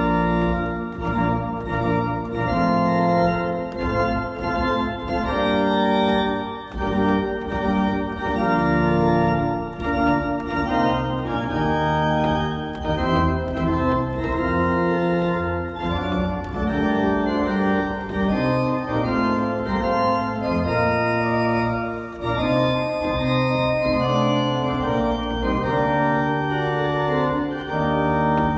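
Church organ played as music: sustained chords that change every second or so over a low pedal bass, played on a two-manual console with pedalboard.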